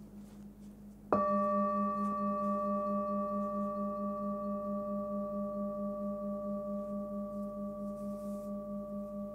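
Hand-forged singing bowl tuned to about 199 Hz (G) struck once about a second in, then ringing on with a deep fundamental and several higher overtones that pulse in a slow wobble as the tone slowly fades.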